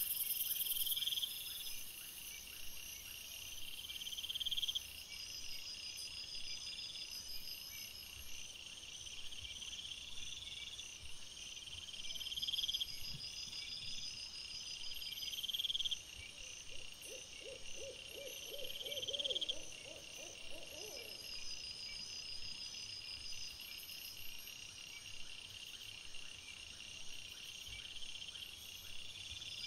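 Night insects chirping: a rising chirp repeats every couple of seconds over a steady high trill. About two-thirds of the way through, a short run of rapid, lower-pitched pulsed calls is heard for a few seconds.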